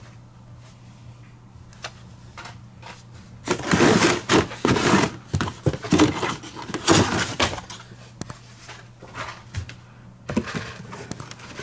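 Carded Hot Wheels cars in plastic blister packs being handled and shuffled, with plastic and card rattling and rustling. There are light clicks at first, then a few loud bursts of clatter from a few seconds in, and more near the end.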